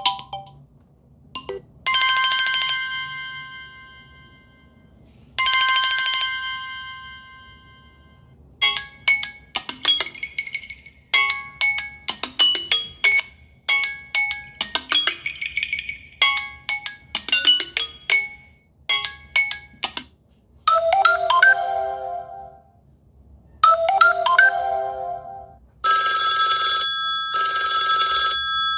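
Samsung Galaxy A20s ringtones playing one after another: a bright chime struck twice, each ringing out over about three seconds, then a long fast run of melodic notes, then two short lower melodic phrases, and near the end a buzzing electronic ring pattern.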